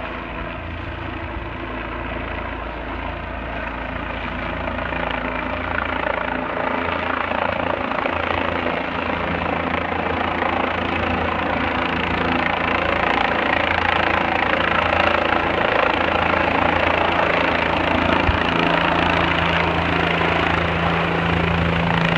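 Air ambulance helicopter coming in to land, its rotor sound steady and growing gradually louder as it descends and nears.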